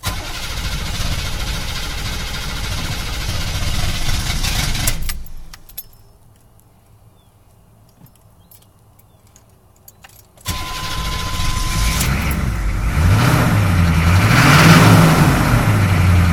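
6.2-litre diesel engine cranking hard for about five seconds without starting. After a pause it is cranked again, catches, and runs unevenly, rising and falling in speed before settling into a rough idle. The owner hopes a new fuel filter will cure the hard starting.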